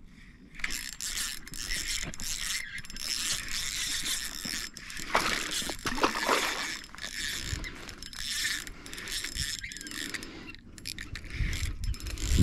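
Fishing reel winding in with a rapid mechanical ticking while a hooked bass is fought. A splash from the fish breaking the surface comes about five to six seconds in.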